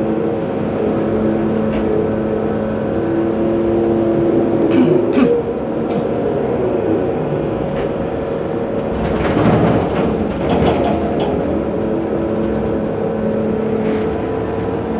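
Large hydraulic mining excavator's diesel engine and hydraulics running steadily under load, heard from inside the operator's cab, as the bucket dumps into a haul truck and swings back to the dig face. A few short clicks come about five seconds in, and a rougher, louder stretch of rattling comes about nine to eleven seconds in.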